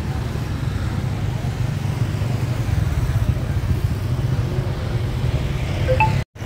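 Steady low rumble of motorbike traffic passing on the street.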